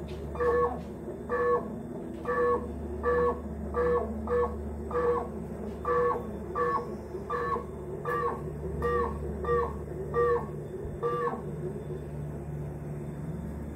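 Old refrigerator making a repeated squeaky chirp, about two a second, over a steady low hum; the chirping stops about eleven seconds in, leaving the hum. The owner wonders whether it is the freezer motor and takes the noise for a sign the fridge is failing.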